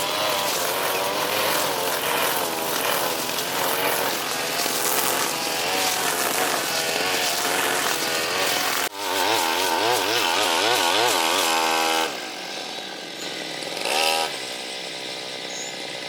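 Brush cutter engine running at high revs while cutting thick grass and brush, its pitch wavering up and down under load. About three quarters of the way through it drops back to idle, with one short blip of the throttle after that.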